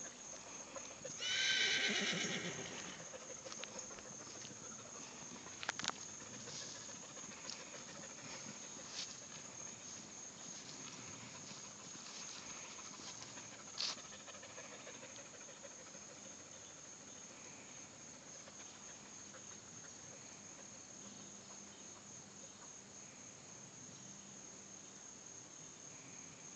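A horse whinnies once about a second in, a loud call that falls in pitch over about a second and a half. Behind it, insects keep up a steady, high, pulsing chirr.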